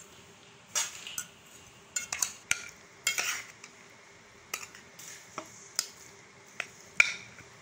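Metal spoon scraping and clinking against a metal pot while cooked rice is scooped out and served onto a plate: a string of irregular clinks and short scrapes, the sharpest a few seconds apart.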